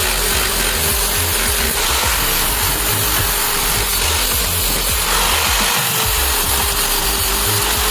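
A power tool running steadily under load, with a steady motor whine and an even grinding noise.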